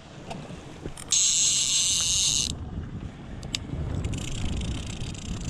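Conventional trolling reel's drag screaming as a hooked fish strips line. A loud high buzz starts about a second in and cuts off a second and a half later, then returns fainter near the end over the low rumble of the boat's outboard and the water.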